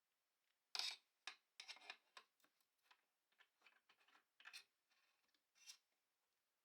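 Light metal clicks and rattles of a lantern stand's parts being handled and fitted together: a short clatter about a second in, then a string of small, quiet clicks and taps.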